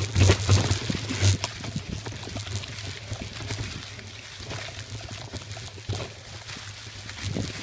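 Mountain bike tyres rolling over dry fallen leaves, a steady crackling rustle with knocks and rattles from the bike over a low rumble. The knocks are densest in the first second and a half, then the ride runs smoother.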